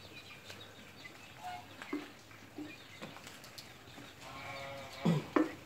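Farm animal calls: a few short calls, then a longer call about four seconds in that ends with a sharp drop in pitch. A few light clicks come with it, one louder near the end.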